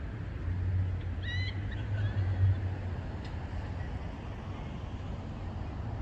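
Urban outdoor ambience: a steady low rumble of distant traffic, with a brief run of quick high chirps about a second in.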